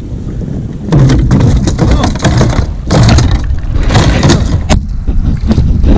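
Wind buffeting the microphone in loud, crackling gusts that start about a second in, with a person's voice mixed in.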